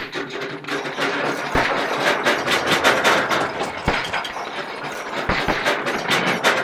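Steam tractor sound effects: a busy clatter of mechanical knocks and rattles, with sharp knocks scattered over a dense rattling noise that thickens about a second in.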